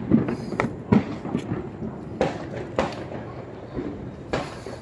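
Scattered sharp clicks and knocks, about five in a few seconds, over a steady workshop background noise: parts being handled.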